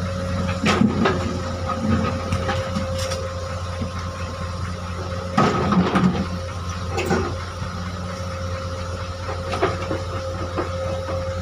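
Excavator's diesel engine running steadily, with several sharp knocks and clanks from the machine working among the boulders, the loudest cluster about halfway through.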